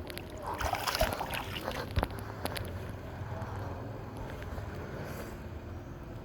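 Pool water splashing and sloshing with small knocks for the first couple of seconds, then settling into a steady low wash of water noise.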